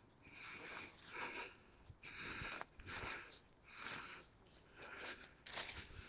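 A person breathing audibly close to the microphone, a soft breath roughly every second.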